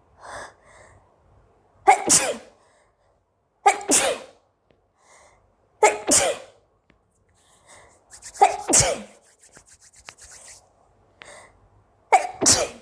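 A woman sneezing five times in a row, about every two seconds, each a sudden loud voiced burst; a longer breathy rush comes around the fourth sneeze.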